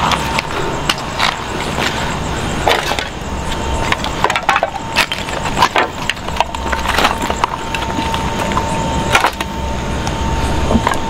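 Footsteps crunching and clattering over loose rubble and broken slabs, in irregular cracks and scrapes. A thin steady tone runs underneath through much of the latter part.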